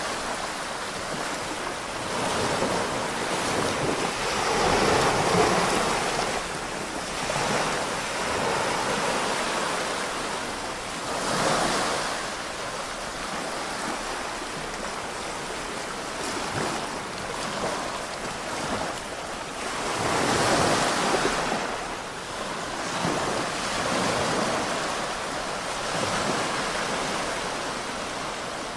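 Small waves washing onto a beach, the surf swelling and falling back every several seconds, with wind on the microphone.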